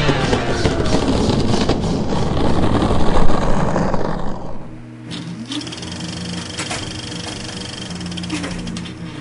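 Loud rock soundtrack music that gives way, about four and a half seconds in, to a quieter steady sound with held low tones and a few sliding tones.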